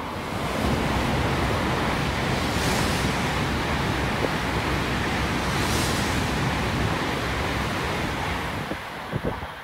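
Tokaido Shinkansen train passing through a station at high speed: a steady rushing roar that builds in the first second and begins to fade near the end, with two brief hissing surges about three seconds apart.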